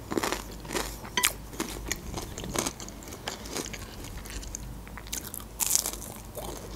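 Close-miked mouth sounds of eating: chewing, with crisp crackles throughout. About five and a half seconds in comes a crunchy bite into a breaded, fried chicken cutlet.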